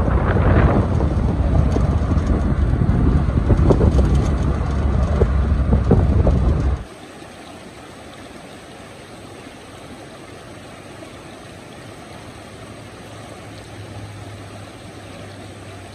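Loud, deep road and wind noise from a moving car. It cuts off suddenly about seven seconds in, giving way to the quieter, steady rush of a shallow stream running over stones.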